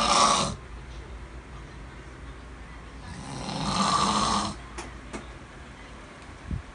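A man snoring in his sleep, one loud rasping snore every four seconds or so: one ends just after the start, and the next swells over about a second and a half and cuts off about four and a half seconds in. Two small clicks follow, and a low thump comes near the end.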